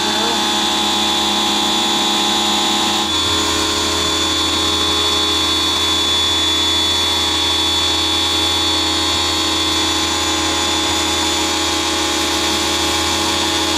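Electric pressure washer's motor and pump running steadily with a high whine while the wand sprays soapy water drawn in through a high-pressure chemical injector.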